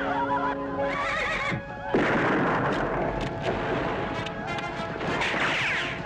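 Horses neighing and galloping in a mixed film soundtrack with dramatic orchestral music, a sharp rifle-shot crack about two seconds in, and a descending whinny near the end.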